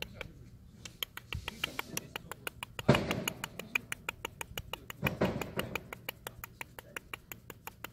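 A stray orange cat makes two short vocal sounds, a sudden one about three seconds in and a second about five seconds in. Under them runs a rapid, even ticking of about six clicks a second.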